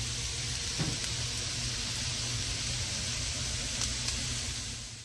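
Quartered red skin potatoes frying in garlic butter in a skillet: a steady sizzle, with a low steady hum underneath, fading out near the end.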